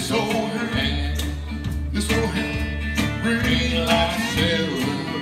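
Live acoustic blues: a 12-string guitar strummed and picked in a steady rhythm over deep bass notes, with a wavering, bending melody line above it.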